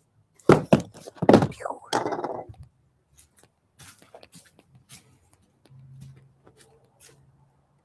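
Cardboard shipping box handled and set down on a wooden tabletop: a few loud thunks in the first second and a half and a short scrape, then only faint light taps.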